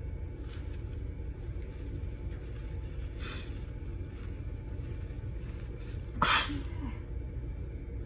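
A woman sneezes once sharply about six seconds in, during an allergic sneezing fit. A shorter, fainter burst comes about three seconds earlier. A steady low rumble runs in the background.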